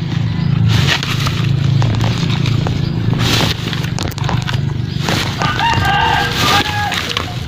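A rooster crows once, for about a second, a little past halfway through. Dull knocks come now and then from husked coconuts being handled and dropped into a sack.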